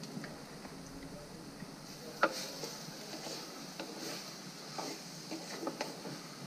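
A spoon stirring and scraping a dry mixture in a clay pot, with one sharp knock about two seconds in and a few lighter clicks after it.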